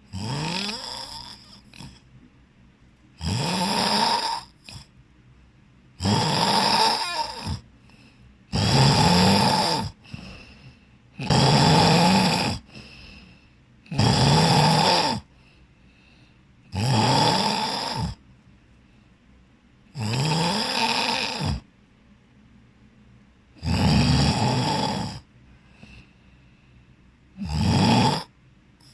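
A person snoring in sleep, about ten snores, one roughly every three seconds. Each snore is a rough rattle lasting about a second and a half that rises in pitch, with quiet breaths between them.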